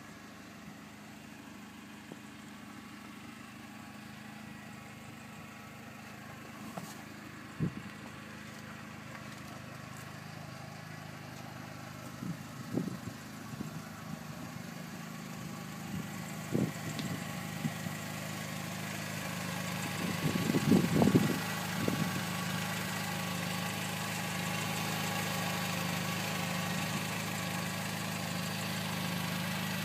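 Volkswagen New Beetle Cabriolet's engine idling steadily, growing louder toward the end, with a few scattered knocks, the loudest cluster about two-thirds of the way in.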